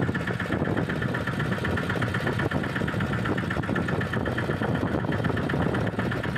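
A boat engine running steadily at idle, with a fast, even beat.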